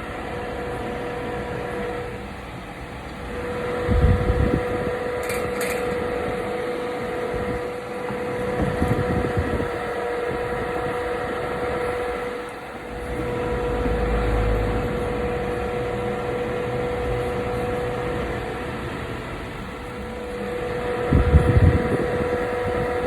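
Battery-powered MK-Power F699 portable fan running, its motor giving a steady whine over the rush of air. Short low rumbles come and go four times.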